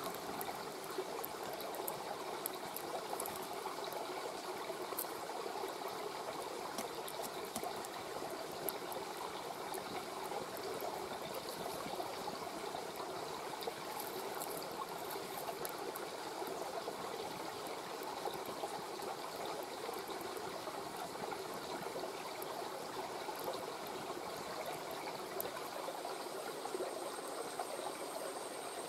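Mountain stream running steadily, with a campfire crackling in small, scattered sharp pops over it.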